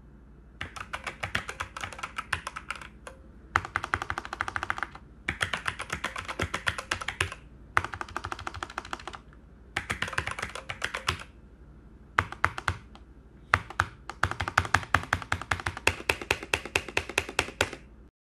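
Typing on a computer keyboard: quick runs of rapid key clicks in bursts of a second or two with short pauses between. It cuts off abruptly near the end.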